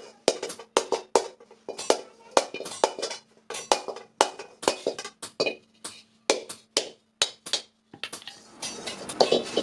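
Hand hammer striking a metal kadai, about two to three irregular blows a second, each ringing briefly. A denser clatter of strikes follows near the end.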